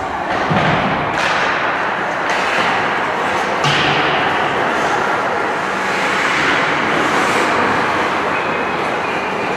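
Ice hockey play on an indoor rink: a steady din of skates scraping and sticks on the ice, with sharp knocks of stick, puck or bodies against the boards about a second in, after two seconds and near four seconds.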